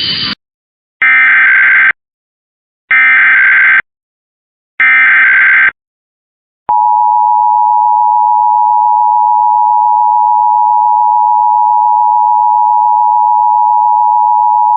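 Emergency Alert System broadcast test: three short screeching bursts of SAME header data, about a second each and evenly spaced, then the EAS two-tone attention signal comes in and holds steady for about eight seconds.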